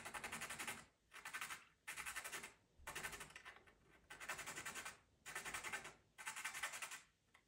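White pastel pencil being sharpened to a point: short scraping strokes repeated about once a second, some seven in a row.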